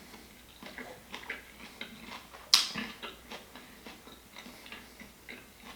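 Close-up eating sounds: scattered wet chewing and lip-smacking clicks, with one sharper, louder crack about two and a half seconds in.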